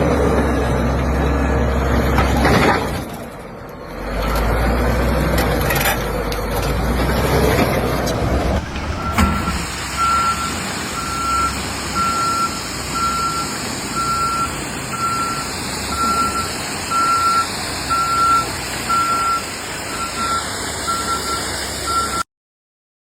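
A vehicle's reversing alarm beeping at one steady pitch, about once a second, over a running engine. It is preceded by several seconds of a loud, low engine rumble, and the sound cuts off abruptly near the end.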